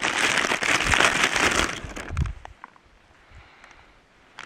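Plant-based burgers frying in a pan, a loud burst of crackling sizzle and spitting fat that dies away about two seconds in.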